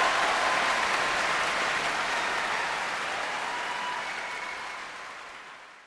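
Large concert-hall audience applauding, the clapping dying away toward the end.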